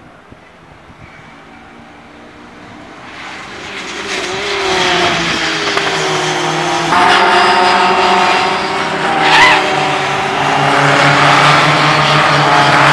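Racing car engines at full throttle as cars race past, swelling from faint to loud about four seconds in, with the pitch of several engines gliding up and down. A short high squeal comes about nine seconds in.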